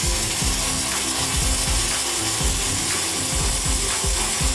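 Hồng Ký HK MIG 200I inverter MIG welder's arc crackling steadily and evenly as it welds with 1 mm wire, a dense run of small rapid pops from the arc.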